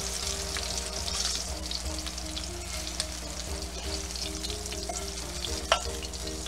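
Beef back ribs frying in hot oil in a stainless steel skillet: a steady sizzle and crackle while the seared pieces are lifted out, with one sharp knock near the end.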